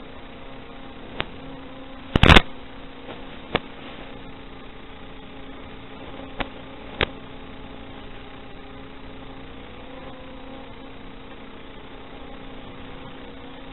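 Steady hiss and hum from the FPV goggles' video receiver audio, broken by five short sharp clicks, the loudest about two seconds in.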